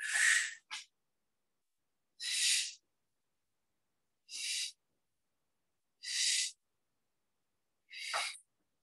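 A woman breathing hard in a steady rhythm while exercising, about five short breathy exhales roughly two seconds apart.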